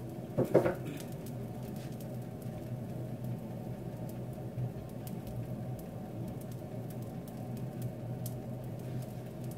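Pancake frying in a pan on the stove: faint crackling ticks over a steady low hum, with a brief knock about half a second in.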